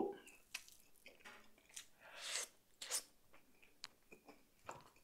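Close-up mouth sounds of a person chewing soft boiled beef: faint wet smacks and small clicks, with two short breathy hisses about two and three seconds in.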